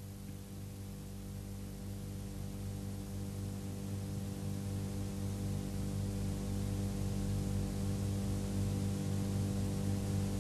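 A steady low hum made of many held tones, strongest in the bass, slowly growing louder.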